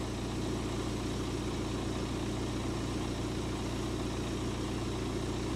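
BMW 1 Series (E82) engine running steadily at idle in gear, turning a jacked-up rear wheel.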